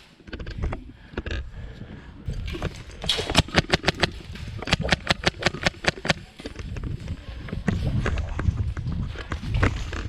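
Airsoft guns firing rapid bursts of shots, several clicks a second, with pauses between the bursts.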